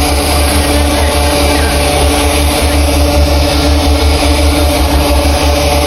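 A steady engine hum with a deep low drone and a few steady tones above it, unchanging throughout.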